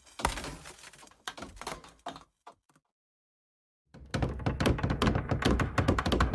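Friction and stress sound effects: a run of short creaks and scrapes that thins out and fades away. After a second and a half of silence, a louder, denser grinding creak with a low rumble starts about four seconds in.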